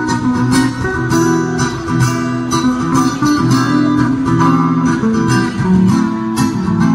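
Acoustic and electric guitars playing an instrumental piece together, the acoustic strummed in a steady rhythm under sustained melody notes.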